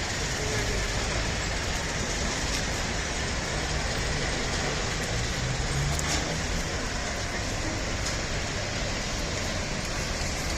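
Steady low rumble and noise of fairground rides running, with no clear separate events.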